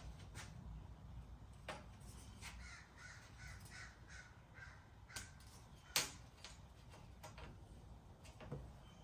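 Rear-window trim molding of a 1978–82 Corvette being handled and laid against the glass, giving faint scrapes and taps, with one sharp click about six seconds in. A quick run of short, pitched squeaks comes between about two and five seconds in.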